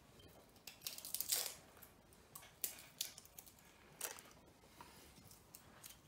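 Dry, papery garlic skins crackling and tearing as cloves are peeled with a small knife, in short scattered bursts.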